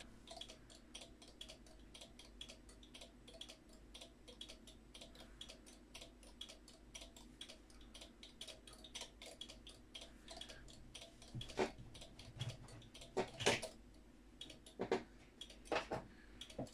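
Relays clicking inside two homemade relay clocks as the clocks run: a fast, steady run of small clicks, with a few louder clicks about two-thirds of the way in.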